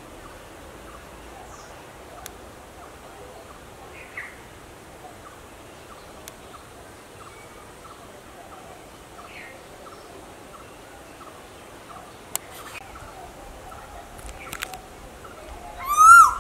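Asian koel calling: one loud, short, sharp call that rises and falls, just before the end, after a few faint brief bird calls.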